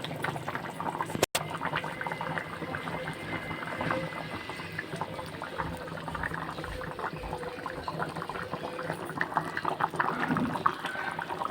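Chicken curry bubbling steadily in its pot on the boil, a dense run of small irregular pops and blips; the sound cuts out for an instant about a second in.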